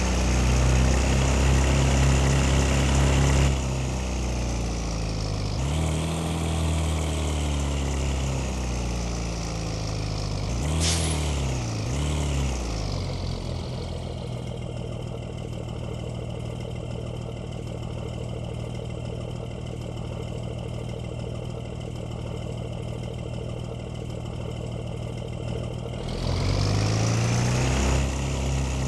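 Yamaha R25 motorcycle engine being revved up and down several times, then settling to a steady idle for about twelve seconds, and revved again near the end.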